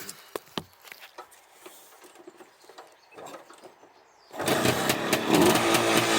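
A few faint clicks, then about four seconds in the Fantic 243 trials bike's two-stroke single fires and keeps running with a fast, rattly exhaust beat. It is the engine's first start after its crank seals were replaced.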